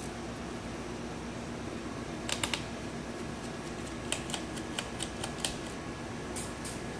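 Light, sharp clicks of a screwdriver working screws out of a laptop's plastic bottom case, in small clusters and single ticks.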